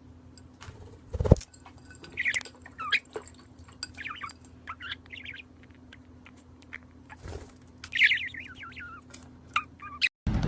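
A small bird chirping in short calls, in two spells, over a steady low hum. Clicks and knocks come through it, the loudest a thump about a second in.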